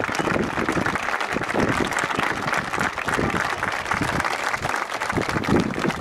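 A large crowd applauding: many hands clapping in a dense, steady patter.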